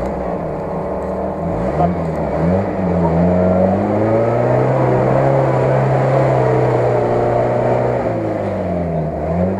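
UAZ-469 off-roader's engine revving under load as it churns through deep mud and water. The revs climb about two seconds in, hold high for several seconds, drop near the end, then rise again.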